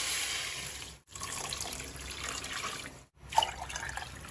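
Water poured from a mug onto rice in a rice cooker pot, a steady splashing pour, as the water for rice porridge (lugaw) goes in. It breaks off abruptly twice, about a second in and again about three seconds in.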